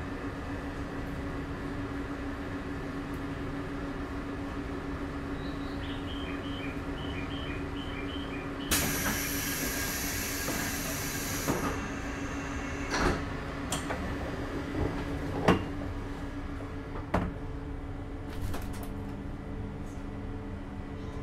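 JR 651 series electric train standing with its doors open: a steady hum of onboard equipment and a run of short beeps. About nine seconds in comes a loud hiss of compressed air lasting a few seconds, then several thuds as the doors shut before departure.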